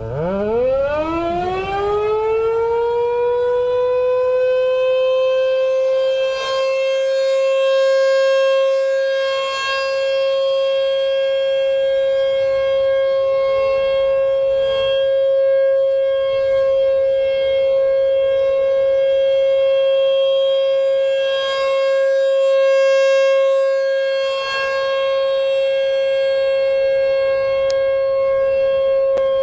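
Outdoor tornado warning siren starting up: it winds up from a low growl to a steady high tone over about three seconds, then holds that tone, swelling a little every few seconds. About halfway through, a second, slightly lower tone joins it.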